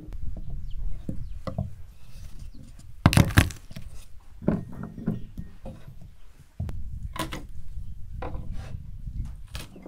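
Kitchen knife slicing garlic cloves on a wooden cutting board, the blade knocking against the wood several times, loudest about three seconds in, over a steady low rumble.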